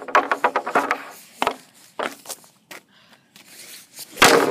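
Hockey shots off a plastic shooting pad: an Easton RS65 stick's blade clacking against pucks and the pad. A quick run of sharp clacks comes in the first second and a few single clicks follow. The loudest crack of a shot comes about four seconds in.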